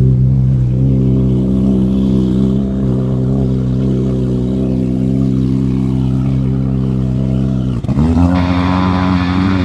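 Watercraft engine running at a steady speed. It drops briefly near the end and picks straight back up.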